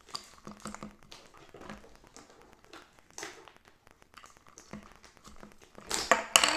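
Small plastic doll accessories being handled: light taps, clicks and rustles as a toy water bottle goes in and out of a little tote bag, with a few louder knocks near the end.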